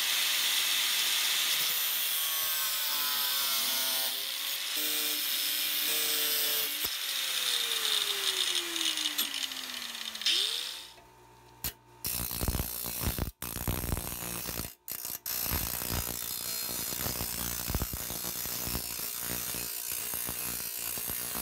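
Angle grinder with a cut-off wheel cutting through the steel plate of an old handsaw, a steady harsh hiss for about ten seconds. After a short break, a bench grinder runs with a steady hum while the cut edge of the plate is ground against it, the grinding coming and going.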